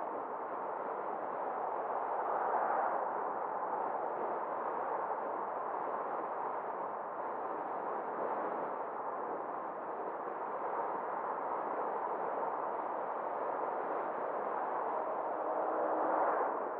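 Steady road and tyre noise from a car driving along a suburban road, swelling briefly as oncoming vehicles pass, about two seconds in and again near the end.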